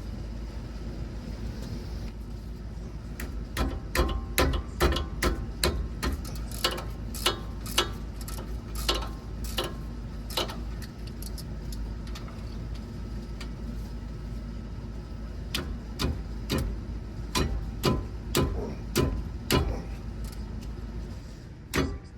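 A run of sharp metallic clicks or taps, about two to three a second, then a pause and a second run of several seconds, over a steady low hum.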